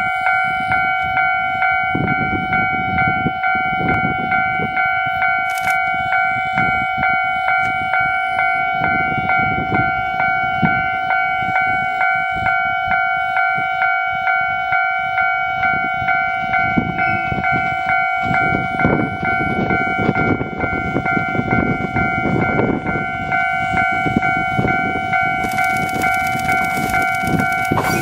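Japanese railway level-crossing alarm ringing, a fast, even, repeating ding. Near the end a rushing noise from the approaching train rises beneath it.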